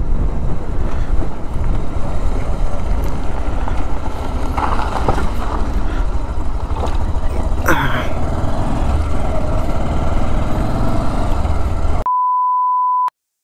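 Wind buffeting the rider's microphone over a motorcycle riding along, a loud dense rush with a couple of brief sharper sounds in the middle. Near the end it cuts to a steady test-tone beep lasting about a second, then silence.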